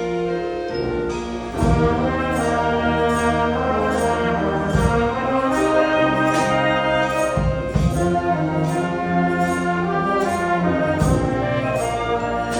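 School wind band playing sustained, brass-led chords over a steady beat; the full band comes in louder about one and a half seconds in.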